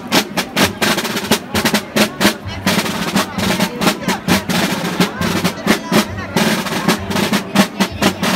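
Two rope-tensioned wooden marching drums (Valencian tabals) beaten with sticks in a brisk, steady beat, with a crowd talking over them.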